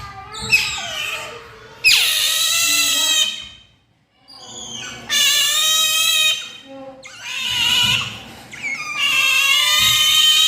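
Asian small-clawed otter screaming to beg for food: a run of loud, high-pitched calls, four long ones each about a second or more, with a brief silence about four seconds in.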